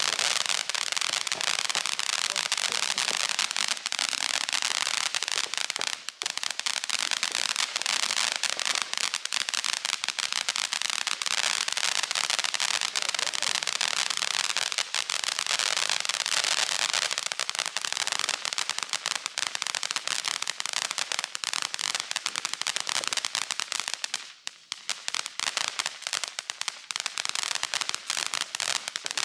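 Ground fountain fireworks spraying sparks with a dense, continuous crackling. The crackle thins for a moment about six seconds in and almost stops briefly about three quarters of the way through, then picks up again.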